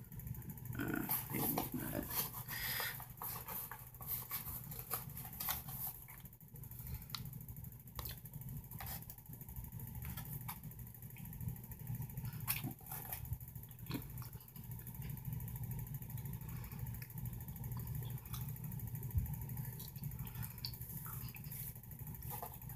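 Quiet handling and mouth sounds as a pinch of loose-leaf chewing tobacco is put in and packed: scattered small clicks and rustles, busier in the first few seconds, over a steady low hum.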